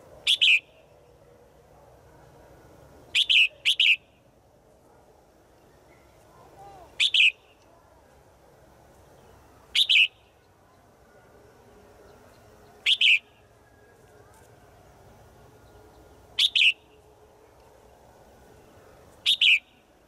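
Caged red-whiskered bulbul, a female by the uploader's account, giving short, sharp calls about every three seconds, some as quick doubles. The uploader takes these calls as a female calling to males.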